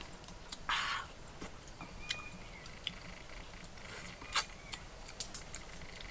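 Faint outdoor ambience with scattered small clicks and a short scrape as cooked river clams are picked out of a pan by hand. The sharpest click comes about four seconds in.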